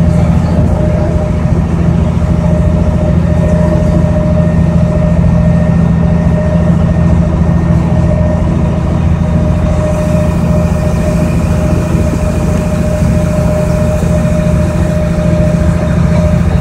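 Boat engine running steadily, heard on board: a loud, even low drone with a constant higher whine over it.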